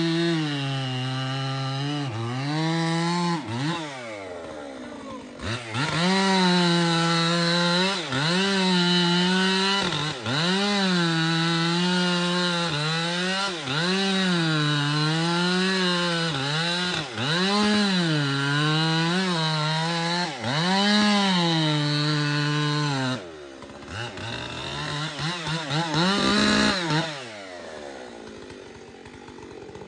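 Two-stroke chainsaw cutting into a big tulip poplar trunk at full throttle, its pitch repeatedly sagging and rising as the chain loads up and frees in the wood. About 23 seconds in it drops back to a quieter idle, revs up briefly once more, then idles low.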